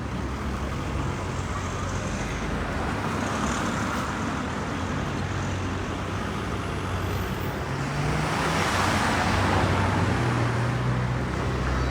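Road traffic noise: a steady low rumble, swelling about eight seconds in as a vehicle passes.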